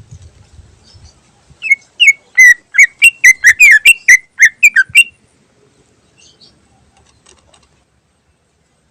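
Cucak ijo (green leafbird) singing a rapid run of about a dozen loud, downward-slurred whistled notes lasting roughly three seconds, then a few faint notes.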